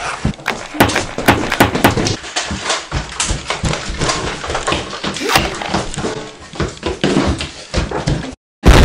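Rapid, irregular knocks and bumps of people moving about close to a handheld camera, with handling noise. It cuts off briefly near the end, then a loud, even noise comes in.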